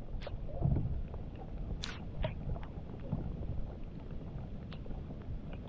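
Low, steady wind rumble on the microphone, with a few faint scattered clicks and knocks.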